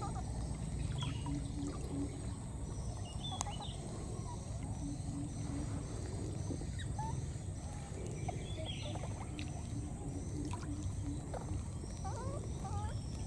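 Baby monkeys giving short, faint squeaks here and there, over a steady low background rumble, with a high thin chirp repeating in the background.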